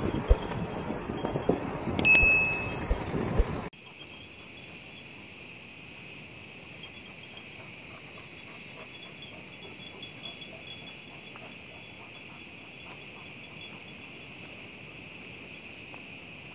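For the first few seconds a car rolls slowly over a dirt road, with a rumble and knocks and a brief high tone about two seconds in. After an abrupt cut, a steady high-pitched chorus of forest insects runs on.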